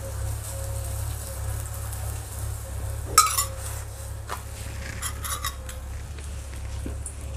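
A steel spoon and small steel bowl clinking while ghee is spread on a paratha and it is flipped on a hot iron tawa, with a light sizzle. The loudest clink comes about three seconds in, with a few smaller ones later, over a steady low hum.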